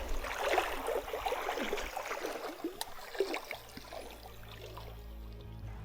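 Water splashing and gurgling with many short bubbly blips for about three and a half seconds, then steady background music comes in.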